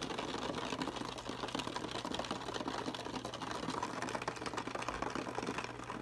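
Aquarium equipment running: a steady low hum under a dense, fast crackle of small clicks.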